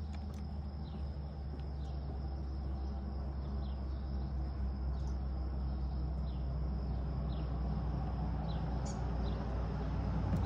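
Outdoor ambience: a steady low hum, with short high chirps that fall in pitch repeating roughly once a second from a small bird or insect.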